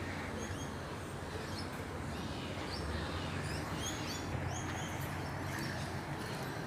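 Small birds chirping repeatedly in short, quick calls over a steady low background rumble.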